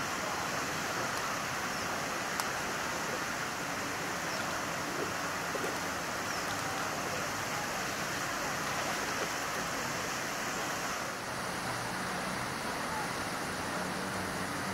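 Steady outdoor ambience: an even wash of noise like wind or moving water, with no distinct event, its high hiss dropping away suddenly about eleven seconds in.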